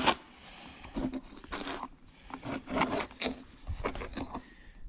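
Handling noise from the video camera being carried and set down on a bucket: a sharp knock at the start, then a string of irregular rubs and scrapes.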